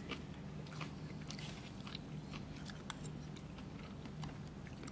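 A person chewing and eating food close to a phone's microphone, with scattered small clicks and crunches over a faint steady low hum.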